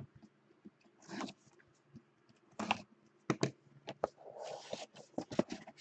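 A cardboard trading-card box being opened and handled: scattered light taps and clicks, with a short scrape about three-quarters of the way in.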